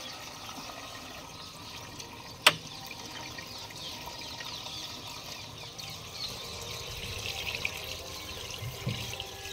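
Diesel pouring steadily from a plastic jerrycan through a funnel into a combine harvester's fuel tank. A single sharp click about two and a half seconds in.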